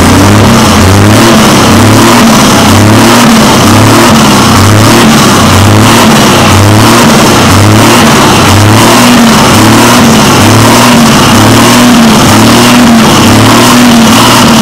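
Scania R400 truck's diesel engine heard right at its side-exit exhaust pipe, being revved in short throttle blips about once a second. The pitch rises and falls with each blip. It is very loud at the pipe.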